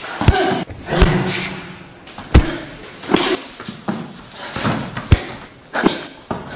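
Sharp thuds of kicks and punches landing on bodies, about five loud blows spread over several seconds with softer scuffing between.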